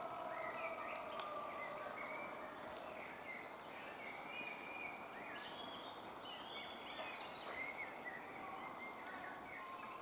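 Faint outdoor birdsong: several small songbirds chirping and twittering, with many short calls scattered throughout over a steady background hiss.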